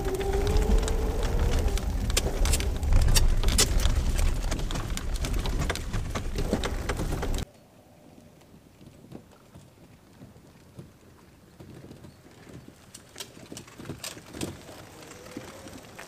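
Electric trike towing a bicycle caravan over a bumpy forest track, heard from on board: a loud low rumble with many rattles and clicks. About seven and a half seconds in it drops abruptly to a much quieter scene, and the rig is heard from a distance, its tyres crackling over the gravel track more and more as it comes closer.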